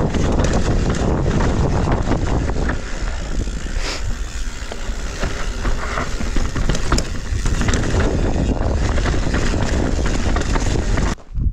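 Mountain bike descending a rough trail of roots and rocks: tyres and bike rattling with many small knocks, over a heavy rush of wind on the microphone. The noise drops away suddenly near the end.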